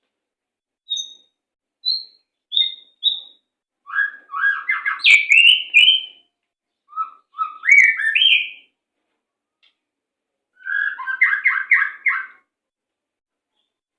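White-rumped shama (murai batu) singing. It gives a few single whistled notes, then three bursts of fast, tightly packed, stuttering notes with clean silent gaps between them.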